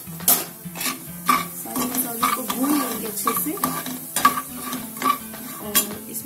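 A metal spatula scraping and clicking against a stainless steel kadai while stirring spices frying in hot oil, which sizzles and bubbles. The strokes come irregularly, several a second, some with a short metallic ring.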